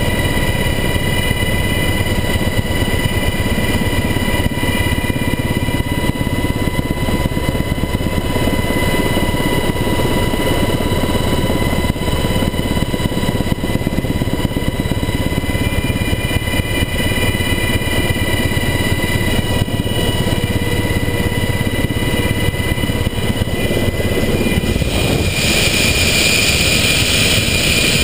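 Helicopter in flight, heard from inside the cabin at the open door: a steady rotor rumble under a high turbine whine. About three seconds before the end, a louder high hiss joins in.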